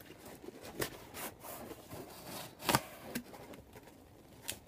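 Cardboard box and its packing being handled: scattered rubbing and scraping, with a sharp knock about two and a half seconds in.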